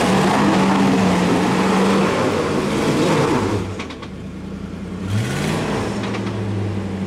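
Land Rover Discovery's V8 engine revving under load as it pushes through deep mud, with a loud rush of noise from the wheels churning the mud. About halfway through it eases off, then the revs climb briefly again and settle to a steadier engine note.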